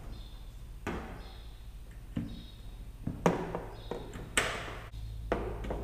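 A mallet tapping a temporary door hinge pin into a Cessna 172's aluminium door: five sharp knocks, about one a second.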